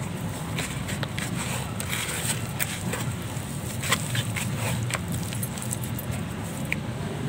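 A hand squeezing and stirring damp, partly dry lumps of handmade mud in a plastic bucket: scattered short wet squishes and crumbly clicks over a steady low rumble.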